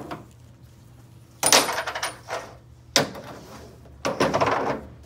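Steel transmission parts and tools clanking as they are set down and moved on a metal workbench. A loud clank comes about one and a half seconds in, with a brief metallic ring. A sharp knock follows at about three seconds, then a short rattle near the end.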